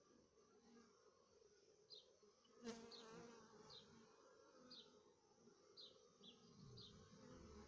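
Faint, steady buzzing of honeybees flying around a hive entrance. Short high chirps repeat about once a second, and a single sharp click comes about two and a half seconds in.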